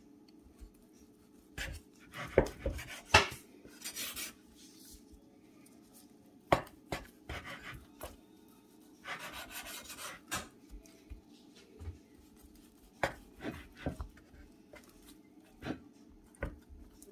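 Chef's knife slicing a soft slab of vegan fatty beef into strips on a wooden cutting board: scattered knocks of the blade meeting the board, with a few longer scraping strokes as it draws through.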